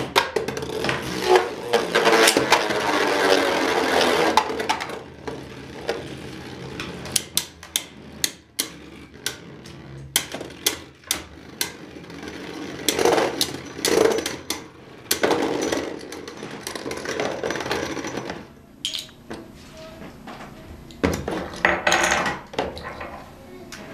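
Beyblade spinning tops whirring and grinding on a plastic stadium floor, with many sharp clacks as the tops strike each other and the stadium walls. The grinding comes in stretches that rise and fade.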